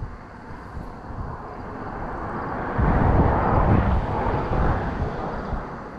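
Wind buffeting the microphone, with a rushing noise that swells to a peak about three seconds in and then fades.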